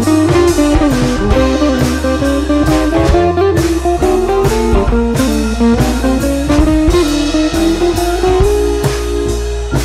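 Instrumental background music: guitar-led track with bass over a steady drum beat.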